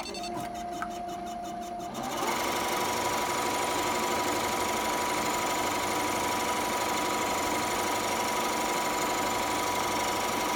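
Embroidery machine running with its needles turned off, moving through the design without stitching. For about the first two seconds it is quieter, with a steady tone; then it comes up to full speed and runs steadily.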